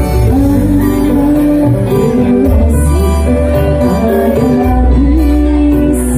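Live band music, amplified: electronic keyboard, electric guitar and bass accompany a woman singing long, wavering notes into a microphone, with a cymbal-like shimmer twice.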